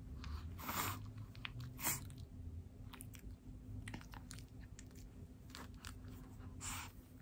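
A Boston Terrier puppy chewing and mouthing a cloth towel: irregular short scratchy crunching noises, the loudest about a second and two seconds in.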